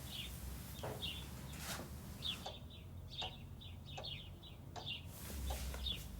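Small birds chirping faintly in short, repeated calls, over a low steady hum.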